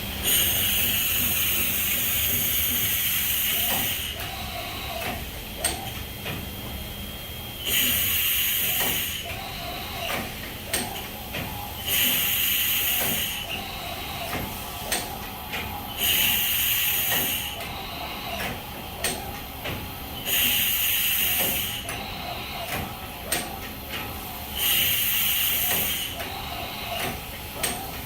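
Haas VF-9/40 CNC vertical mill cycling: six short bursts of compressed-air hiss, about every four seconds, with mechanical clicks and clunks between them.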